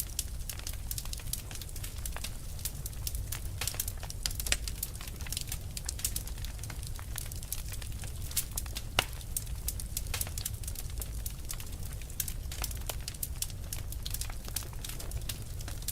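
Burning fire crackling: a dense, irregular run of sharp pops and snaps over a low steady rumble, with a couple of louder pops around five and nine seconds in.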